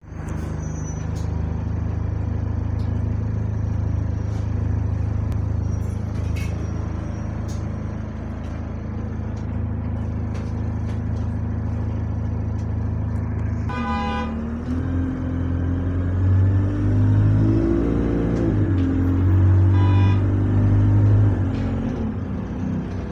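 Bus engine heard from inside the passenger saloon: idling steadily, then about two-thirds of the way through pulling away, its note rising, dipping at a gear change and rising again under acceleration. Two short beeps sound, one as it moves off and another a few seconds later.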